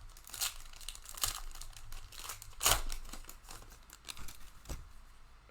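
Crinkling of a plastic trading-card pack wrapper being torn open and handled, a string of irregular sharp crackles with the loudest about halfway through.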